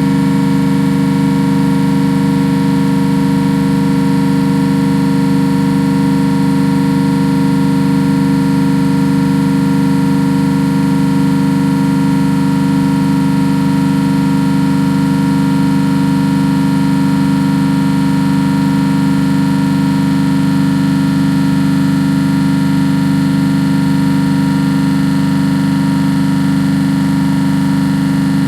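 Trane CRHR500 refrigeration compressor running steadily on a run test: a loud, unchanging hum with a ladder of steady tones above it.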